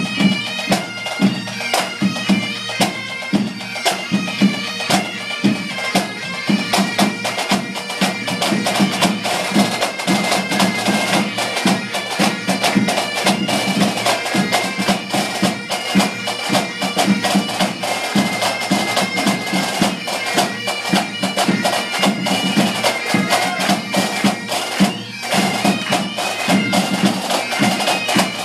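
Pipe band playing: Highland bagpipes sounding a melody over their steady drones, with the bass and tenor drums beating an even rhythm under it.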